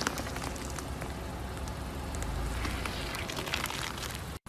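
Car tyre rolling slowly over a block of wet floral foam stuck with dry spaghetti, crushing it with crackling and snapping over a low rumble of the tyre on asphalt. The crackles are thickest near the start and again about three and a half seconds in.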